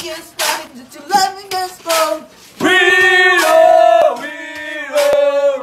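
A group of men singing together without instruments: sung phrases over sharp percussive hits keeping a beat, then from about two and a half seconds in several voices holding long notes in harmony.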